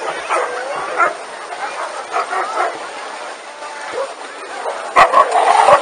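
Many huskies howling, yipping and whining at once, their calls overlapping. About five seconds in there is a sharp knock, and the whole sound turns louder.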